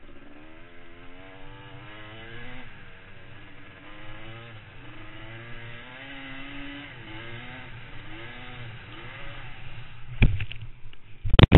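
Off-road motorcycle engine revving, its pitch rising and falling repeatedly over a steady low rumble. Loud sharp thumps come about ten seconds in and again near the end.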